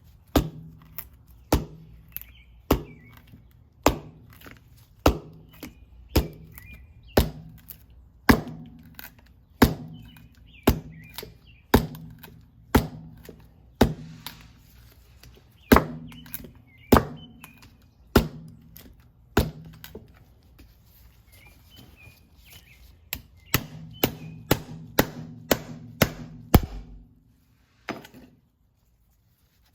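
Krate Tactical OTF knife blade being struck repeatedly into a hard surface in a tip-strength test: sharp chopping impacts about once a second, speeding up near the end, then stopping.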